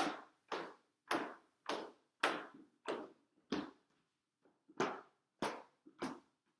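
Fireworks banging in a rapid, even series, about ten shots at nearly two a second with one short pause about four seconds in, each a sharp pop that dies away quickly: a multi-shot firework cake firing shot after shot.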